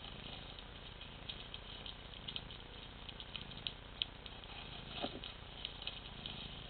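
Faint short bird chirps from a bird video playing through laptop speakers, scattered irregularly, with a brief falling call about five seconds in.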